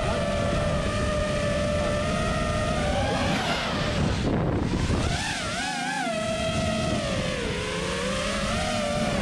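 FPV freestyle quadcopter's four Xing 2206 1700Kv brushless motors driving Ethix S4 propellers: a steady buzzing whine whose pitch wavers with the throttle. The pitch sags lower late on, then climbs again near the end.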